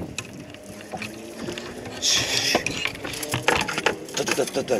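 Spinning reel being cranked on a fishing rod, its gears giving quick clicks and ticks that come thick in the second half. A brief hiss about two seconds in.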